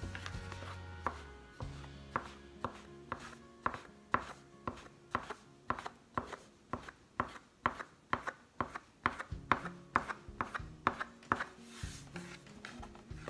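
Bench scraper chopping a rope of semolina pasta dough into small pieces on a wooden board: a steady run of sharp knocks, about two a second.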